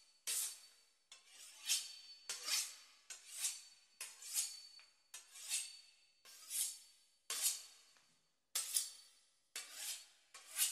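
A knife sawing back and forth through the crisp puff-pastry crust of a beef Wellington: a steady run of short rasping strokes, one or two a second.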